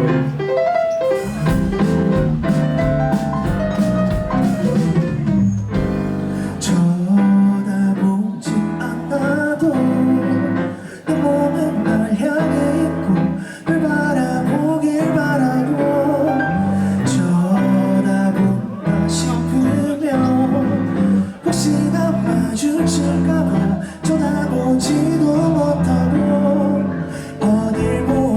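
Live rock band playing a song: electric guitar over drums, bass guitar and keyboard, with a steady beat.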